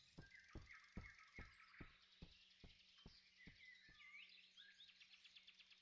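Near silence: faint forest ambience of birds chirping, with a run of soft knocks, about two a second, that fade away past the middle.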